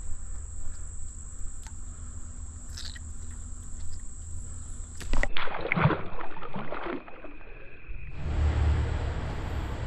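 Insects trilling steadily over a low rumble. About five seconds in, this gives way to a couple of seconds of loud clatter and knocks. Then the insect trill returns with a louder low rumble.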